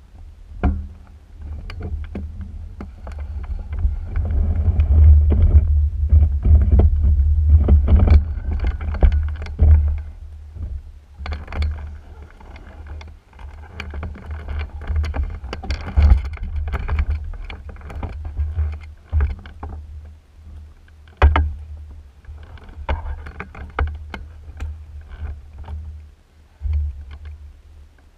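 A microlight trike being pushed along the taxiway on its punctured nosewheel with the engine stopped: a low rumble with frequent knocks and rattles from the airframe and wheels.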